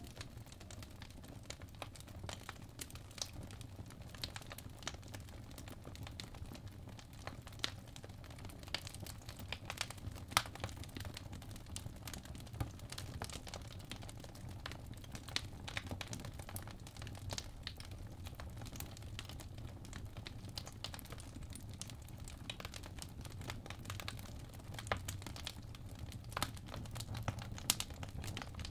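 Crackling fireplace ambience: quiet, irregular pops and crackles over a low, steady rumble.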